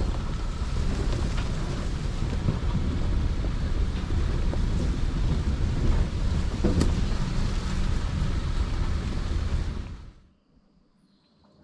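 Wind buffeting the microphone over the rumble of a pickup truck driving along a rough dirt track, with a single knock about seven seconds in. The sound cuts off to near silence about ten seconds in.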